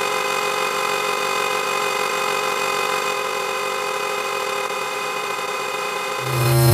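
Car horn beep sound effect, layered many times over into one steady, harsh held tone. About six seconds in it switches to a louder, lower tone.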